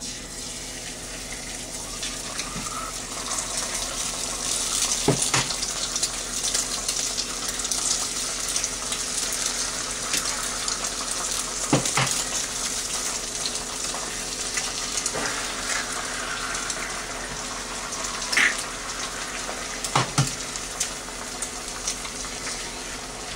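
Eggs frying in melted butter in a Lodge 10-inch cast iron skillet: a steady sizzle, broken four times by a sharp knock as eggs are cracked against the pan.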